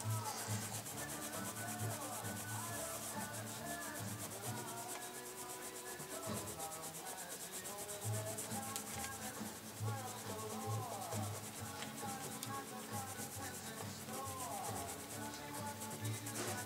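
Brisk scrubbing by hand on the pin-studded metal selector plate of a Rock-ola 443 jukebox: a fast, steady rasp of many short strokes, working stubborn old gunk off the plate.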